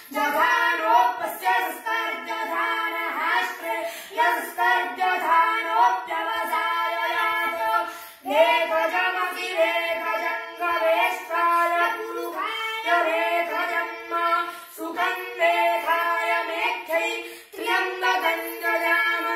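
Sanskrit mantras chanted in unison by a child and women on a few held pitches, in phrases broken by brief pauses for breath.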